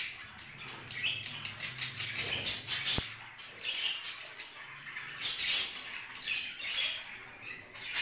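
Budgerigars chirping and chattering in a rapid run of short, high calls. A sharp click sounds about three seconds in.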